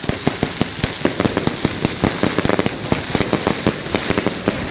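Wolff Jackhammer firework cake box firing: a fast, uneven run of loud shots, several a second, over continuous crackling.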